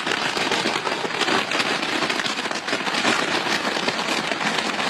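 Sky ladder fireworks burning with a loud, dense, continuous crackle: countless small pops running together without a break.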